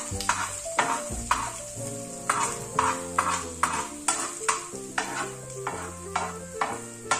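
Metal spoon stirring and scraping scrambled egg in a pan, in strokes about two a second, over a steady sizzle of frying. Background music plays underneath.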